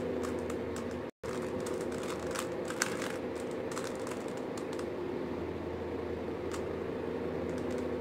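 Plastic 3x3 Rubik's cube being turned by hand: quick runs of light clicks and rattles as the layers rotate, over a steady hum. The sound cuts out briefly about a second in.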